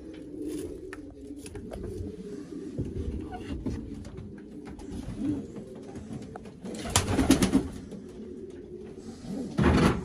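Racing pigeons cooing steadily in a loft, with two louder noisy bursts, one about seven seconds in and one near the end.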